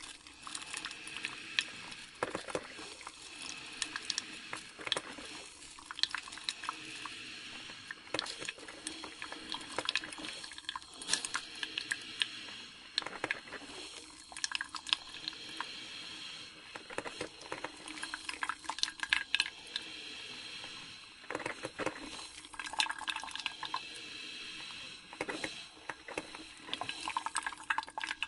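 Coffee maker brewing: a steady hiss of heating water with irregular gurgles, pops and sputters.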